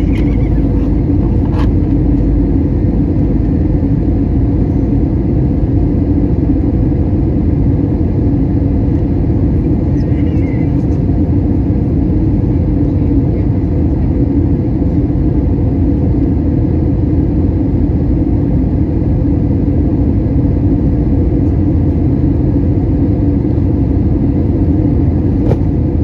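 Steady cabin noise inside an Airbus A320 airliner in flight: the jet engines and rushing airflow heard through the fuselage as a continuous low rumble. A faint click sounds a couple of times.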